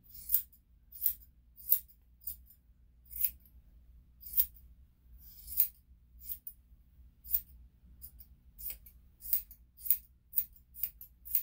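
Grooming scissors snipping the hair on a small dog's face, one sharp snip at a time. The snips come about once a second at first, then quicken to about two a second near the end.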